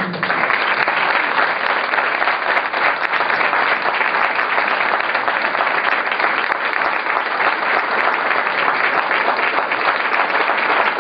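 Audience applauding, the clapping starting suddenly at full strength and holding steady.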